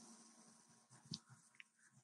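Near silence: room tone through a headset microphone, with one faint short click about a second in.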